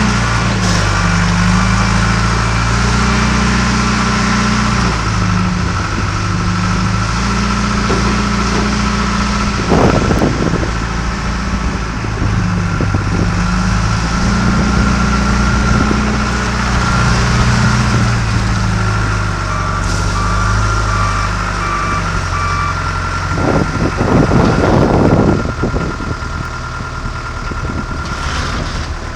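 John Deere 310G backhoe loader's diesel engine running under varying load, its revs rising and falling again and again, with a steady whine above it. A reversing alarm beeps near the start and again about two-thirds of the way through, and there are a few louder rushing noises, one about ten seconds in and more near the end.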